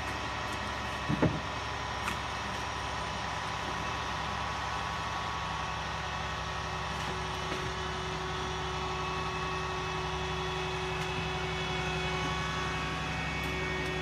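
Crane truck's engine running steadily with a hum as it lifts a crated refrigerator, a higher steady tone joining about halfway through. A short knock about a second in.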